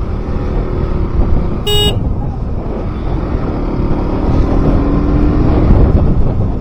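KTM RC 200's single-cylinder engine running under way, with heavy rumbling road and wind noise. A short horn toot sounds about two seconds in.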